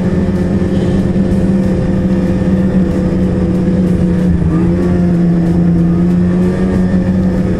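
Ski-Doo snowmobile engine running at a steady trail-cruising speed, holding an even pitch with a slight change in engine note about four and a half seconds in.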